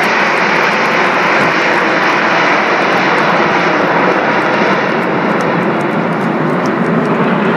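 A formation of Aermacchi MB-339 jet trainers, each with a single turbojet, flying overhead: loud, steady jet engine noise. The high hiss at the top thins slightly after about five seconds.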